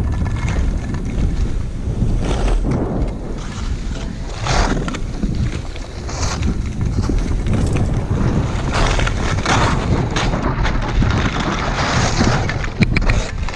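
Wind buffeting the microphone during a fast downhill run on snow. A swishing scrape of edges on snow comes roughly every two seconds, as with turns.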